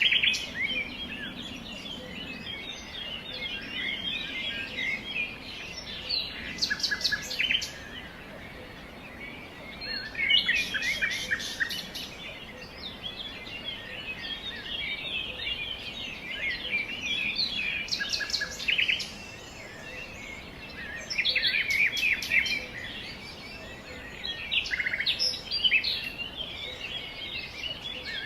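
Several small songbirds chirping and twittering without a break, with louder bursts of rapid, high chirps every few seconds.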